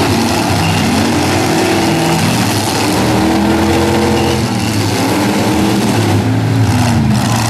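Several demolition derby pickup trucks' engines revving hard at once, their pitches rising and falling over one another as the trucks push and ram, over a dense steady din.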